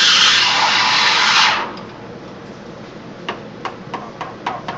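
Espresso machine steam wand hissing loudly into a cup of milk while frothing it, shut off abruptly about one and a half seconds in. After that, a few light clicks or taps.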